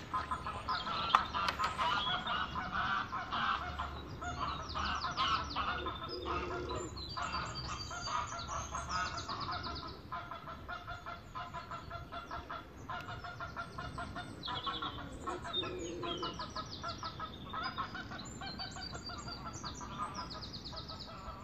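Geese honking repeatedly, a run of short calls that are louder in the first half and fainter later on.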